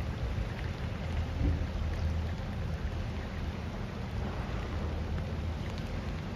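A small whale-watching boat's engine running with a steady low rumble, under an even hiss of rain and wind.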